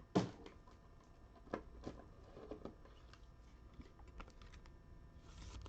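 Faint, scattered light clicks and taps of trading cards being handled and sorted.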